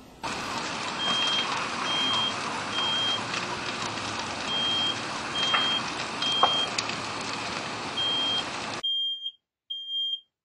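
Smoke alarm chirping a short, high beep about once a second under a loud, steady rushing noise. The noise cuts off suddenly near the end, leaving the last two beeps on their own.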